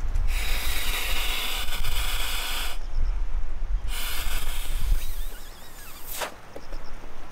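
Air blown by mouth through the valve of an inflatable camping pillow: two long rushing breaths, each about two and a half seconds, with a short pause between. Wind rumbles on the microphone underneath.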